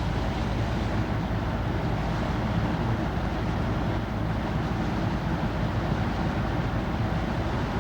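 Vehicle engine running steadily: a continuous low rumble with an even hiss over it.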